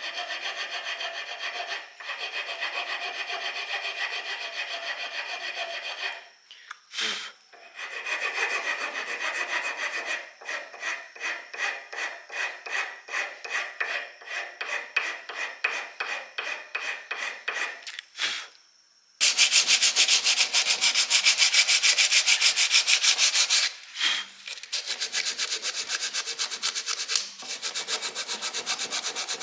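Rapid back-and-forth rasping strokes of hand abrasive work on a handmade knife, in several bouts separated by short pauses. The loudest and densest bout starts about two-thirds of the way through.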